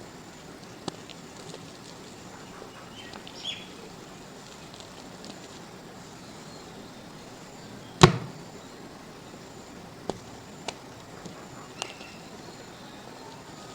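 Dried mud cracking and crumbling under pressure: sparse small cracks and crumbles over a faint hiss, with one loud sharp crack about eight seconds in and three smaller cracks after it.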